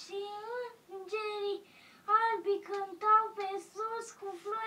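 A boy singing a short melody unaccompanied, in a high child's voice, with several held notes and short breaks between phrases.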